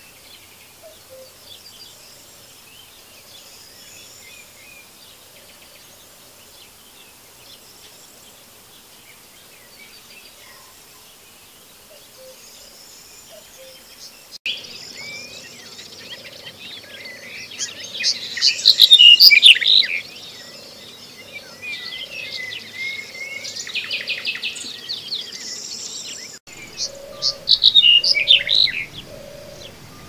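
Black-headed bunting singing: faint calls at first, then louder short song phrases after about halfway, loudest twice in the second half, over a low note repeated steadily in the background.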